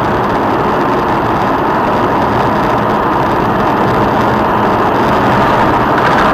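Steady engine and road noise of a moving car, a constant hiss-like rumble with no impacts.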